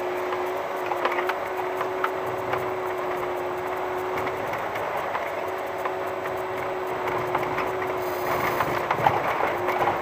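VW T5 camper van rolling slowly over a rough dirt track: a steady hum with a stream of small clicks, knocks and rattles from the bumps, busiest near the end.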